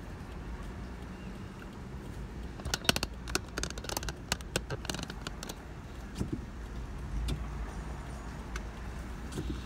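Car interior: the car's steady low rumble while driving slowly, with a quick run of sharp clicks and rattles about three to five seconds in.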